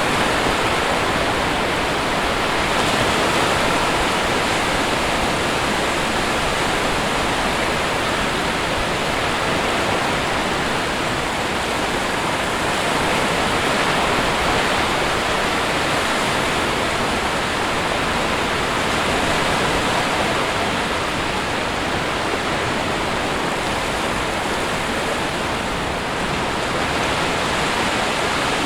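Sea surf: a continuous, even rush of breaking waves, rising and falling only slightly in level.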